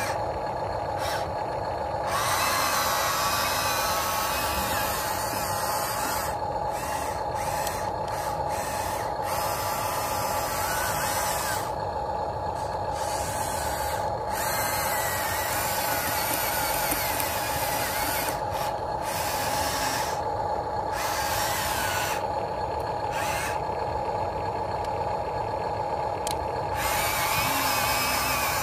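Electric gear motors of a Huina 1593 RC excavator whining as its tracks and boom are driven, cutting in and out every few seconds over a steady tone.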